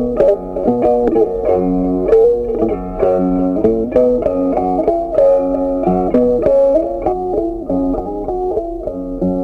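Background music: a plucked string melody with quick note changes.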